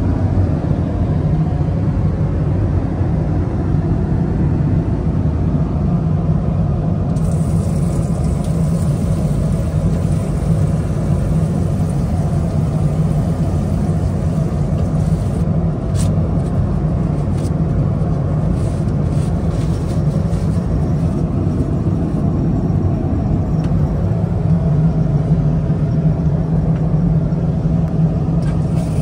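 Steady loud drone of an Airbus A330-300 airliner in flight, heard inside the lavatory, with a deep rumble underneath. A higher hiss joins about seven seconds in.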